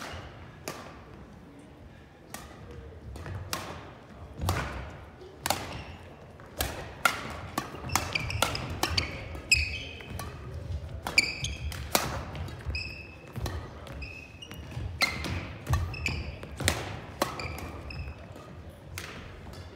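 Badminton rally on a hardwood gym floor: sharp racket strikes on the shuttlecock coming every second or so, with short high shoe squeaks and low footstep thuds between them.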